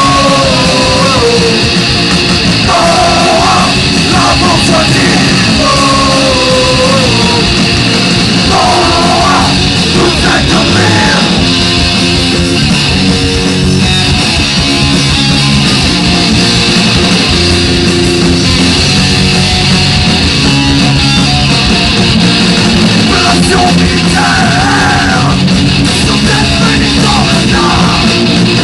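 Live rock band playing loud with electric guitars and drums, a vocalist yelling into a microphone for the first ten seconds or so and again near the end, the instruments carrying on alone in between.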